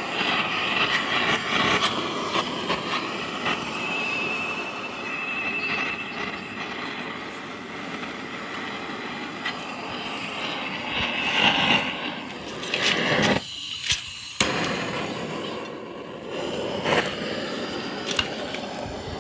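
Steady blowing rush of a heat tool warming the Jawa 634 crankcase around the crankshaft bearing seat, so the case expands and lets go of the bearing. The rush thins out for about a second two-thirds of the way through.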